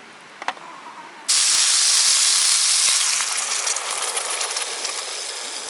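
A click, then about a second later a sudden loud hiss that holds briefly and then slowly fades.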